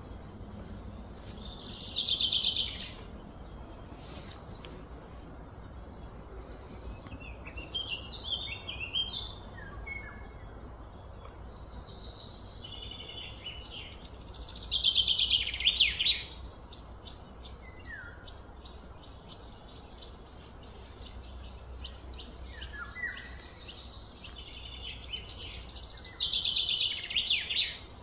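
A songbird singing the same falling, trilled phrase three times, each phrase about a second and a half long, with shorter chirps from birds in between, over a steady low background hum.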